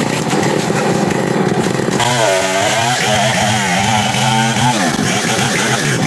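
Two-stroke chainsaw running at high revs and cutting through a felled teak trunk. From about two seconds in, its pitch keeps dipping and rising as the engine bogs and recovers in the cut.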